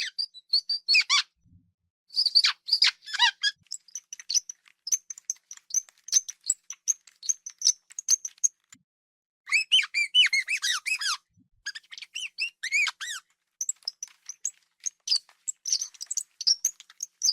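Hamster squeaking: a rapid, irregular series of short high-pitched squeaks, with several denser bursts of louder squeaks that fall in pitch.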